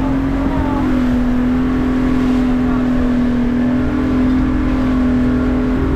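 A 200-horsepower outboard motor running steadily at cruising speed under wind and rushing wake noise. Its pitch dips slightly about a second in and rises a little near the end as the boat rides the swell.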